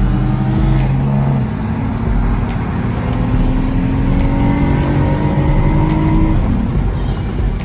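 Acura TL Type-S V6 engine with an AEM V2 intake pulling hard under acceleration. After a break about a second in, the engine pitch climbs steadily for about five seconds, then falls away near the end.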